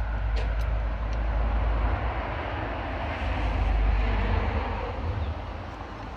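A passing vehicle: a rumbling engine-and-road noise that swells to a peak about four seconds in, then fades. A few faint clicks come near the start.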